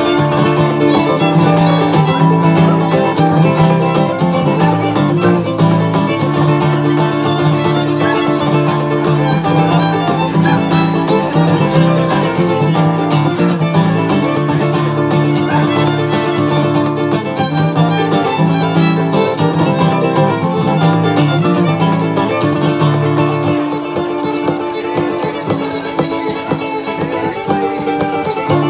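Violin and acoustic guitar duo playing live: a bowed violin melody over picked guitar. Near the end the guitar's low notes drop out and the music gets slightly quieter.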